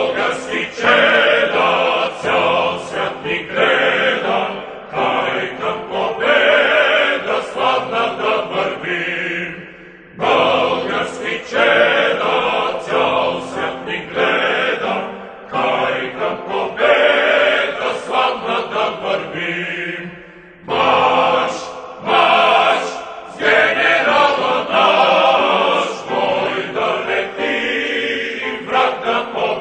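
A choir singing in long phrases, with short breaks about every ten seconds.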